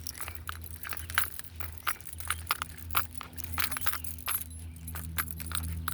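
Small metal pieces jingling in irregular light clicks, as from tags or keys swinging with walking, over a low steady hum.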